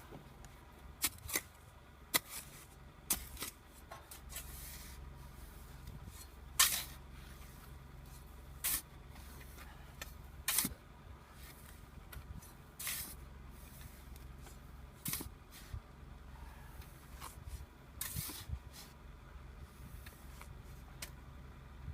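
A car engine idling with a low steady hum, with short scrapes and clicks scattered over it every second or two.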